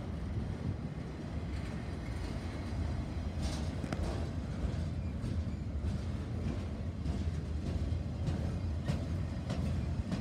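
Empty freight flatcars rolling past: a steady low rumble of steel wheels on rail, with scattered sharp clicks and clanks.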